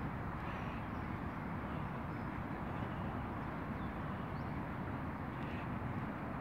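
Steady outdoor background noise, a low even rumble with no distinct events, and a few faint high bird chirps over it.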